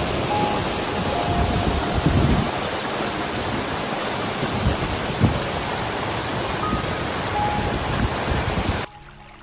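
Rushing water from a waterfall or fast mountain stream, a steady dense roar that cuts off suddenly near the end.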